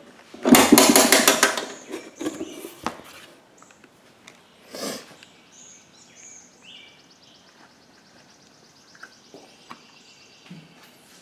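Metal sockets and tools clattering in a steel toolbox: a loud rattle for about a second and a half, then scattered clicks and taps. Faint high chirps come in the middle.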